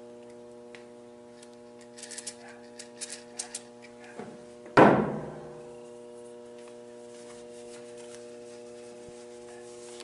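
A steady electrical hum under the handling of gun-cleaning gear on a workbench: a few short light clicks and ticks about two to three and a half seconds in, then a single loud clunk that rings briefly, about five seconds in.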